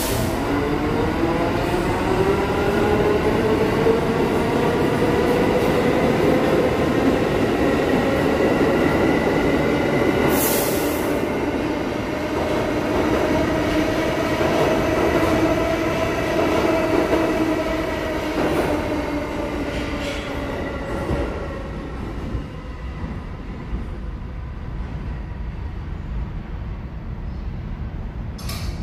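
New York City subway train running through the station, its traction motors whining in a stack of tones that rise steadily in pitch as it picks up speed, over the rumble of wheels on the rails. A short hiss comes about ten seconds in, and the train fades away over the last several seconds.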